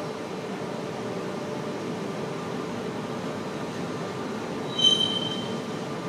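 Electric freight train running on the tracks: a steady rumble with a hum, and a short high wheel squeal about five seconds in.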